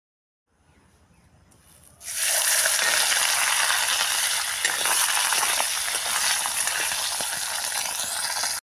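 Whole fish frying in hot oil in an iron wok: a loud, steady sizzle that starts suddenly about two seconds in and cuts off just before the end.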